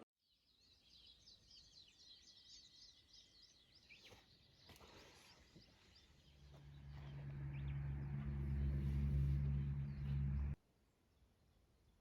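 Birds chirping in the morning, many quick high chirps. From about six seconds in a low engine-like hum builds steadily louder, then cuts off abruptly near the end.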